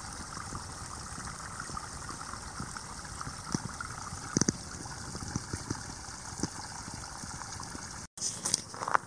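Small brook trickling and gurgling among rocks: a steady watery hiss with scattered light clicks. The sound cuts out for a moment about eight seconds in.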